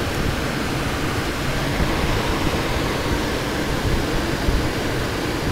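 Steady rush of airflow noise inside a glider's cockpit under aerotow, with no clear engine tone.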